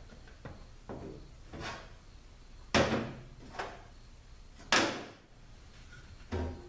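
Metal transmission pump parts being handled and set down on a workbench: a series of clunks and knocks, the two loudest about three and five seconds in.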